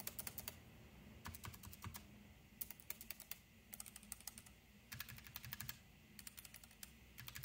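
Keychron K3 low-profile keyboard with red optical switches being typed on: quiet, in short runs of quick keystroke clicks, about seven runs with brief pauses between.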